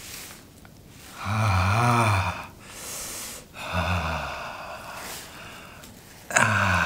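Men's voices letting out drawn-out, wavering 'ohh' exclamations of awe, three times, the first the loudest, with a breathy hiss in between.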